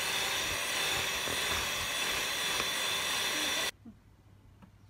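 Electric mixer running steadily at speed, its twin beaters whipping a thick creamy batter, with a whirring motor whine. It cuts off abruptly near the end, leaving only a few faint light taps.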